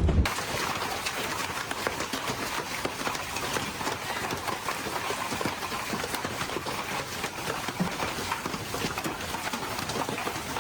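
Hail falling and striking hard surfaces: a dense, irregular patter of small sharp impacts over a steady hiss.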